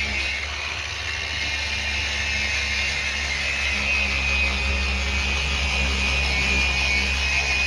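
A handheld power tool spinning a foam pad with polish against a plastic headlight lens, running steadily with a whirring grind.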